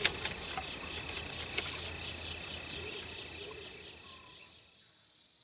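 Insects chirping in a fast, even pulse over a steady high trill, with a faint low outdoor hum; it fades out near the end.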